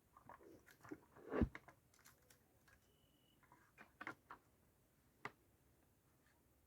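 Scattered light clicks and taps, irregularly spaced, with one louder knock about a second and a half in.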